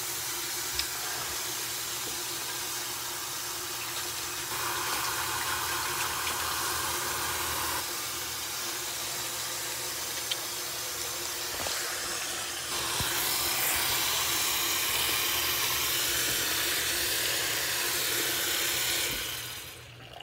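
Tap water running into a sink of soapy water in a steady hiss, getting louder twice for a few seconds and stopping near the end, with a few faint clicks.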